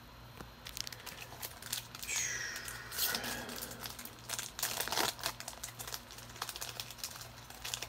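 Foil wrapper of a Topps Chrome card pack crinkling and crackling in irregular bursts as it is handled, over a faint steady low hum.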